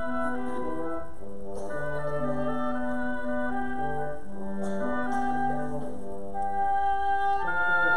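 Small woodwind ensemble with flute and French horn playing a piece together in several parts, mostly held notes that change every second or so.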